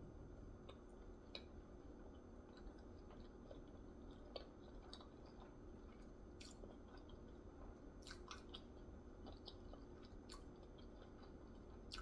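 Faint close-up chewing of a spicy sushi roll, with scattered soft mouth clicks and a few sharper clicks in the second half.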